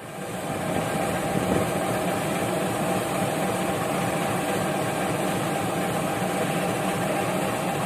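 Diesel engine of a CC206 diesel-electric locomotive running steadily at idle, fading in at the start.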